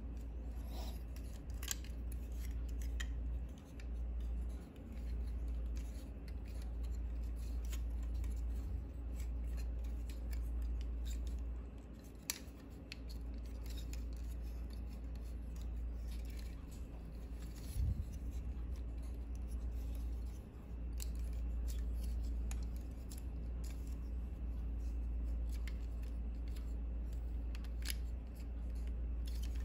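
Plastic parts and ratchet joints of a Megatron transforming robot figure clicking and rubbing as they are folded and turned by hand, over a steady low hum. One louder knock a little over halfway through.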